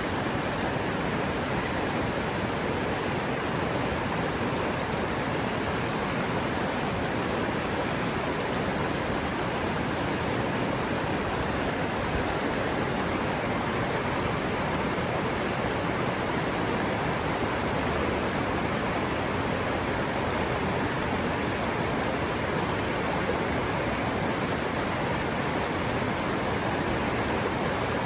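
Steady rush of river water flowing, an even, unchanging noise with no bird calls standing out.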